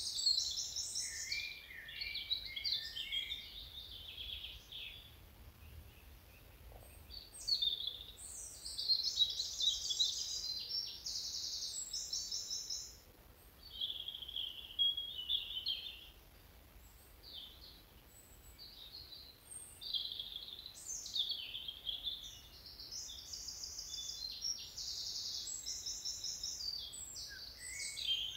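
Songbirds singing, a run of high chirps and rapid trills phrase after phrase, with short pauses between.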